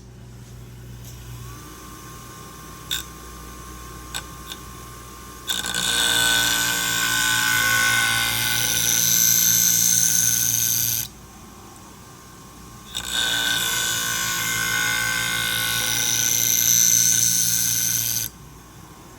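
Scissor blade being ground on the 240-grit diamond wheel of a Wolff Twice As Sharp scissor sharpener: two grinding passes of about five seconds each, a little more than a second apart, over the steady hum of the machine's motor. A couple of light clicks come before the first pass.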